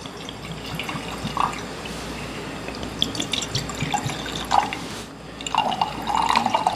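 Drinks poured from bottles into glasses: a clear liquor trickling into a glass, then, about five and a half seconds in, beer poured in more loudly.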